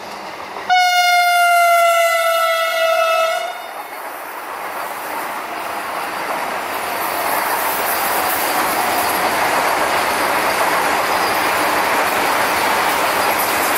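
Vande Bharat Express electric trainset going past at speed. About a second in, one horn blast lasting nearly three seconds drops slightly in pitch. Then comes the steady rush and wheel clatter of the coaches running by.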